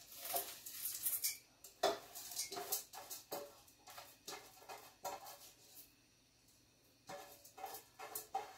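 Dry basmati rice and lentils poured from a stainless steel bowl into a rice cooker pot, the grains rattling and pattering in short, irregular rushes with a few light metal clinks, and a short pause a little past the middle.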